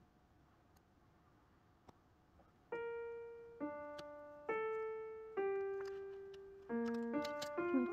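Background music: a solo piano plays a slow melody, one note about every second, each left to ring and fade, with a few quicker notes near the end. The piano comes in about three seconds in, after a few quiet seconds.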